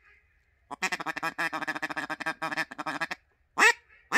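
Echo cocobolo single-reed mallard duck call being blown: a fast run of short notes, about ten a second, for a couple of seconds, then a single loud quack near the end and another just as it closes.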